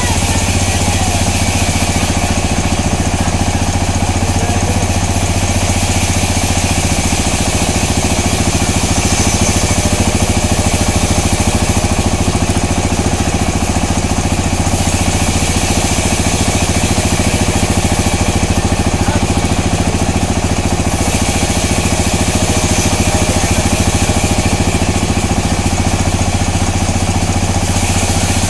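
Sawmill machinery running steadily with a loud low drone and rattle, and a high hiss that swells and eases every few seconds.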